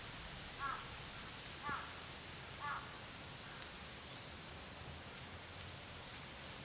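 A crow cawing three times, about a second apart, over faint steady background noise.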